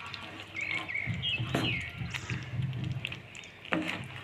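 Small birds chirping in short, rising calls, with a few sharp clicks or knocks.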